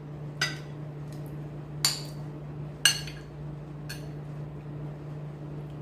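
Utensils clinking against dishes: four sharp, ringing clinks about a second apart, over a steady low hum.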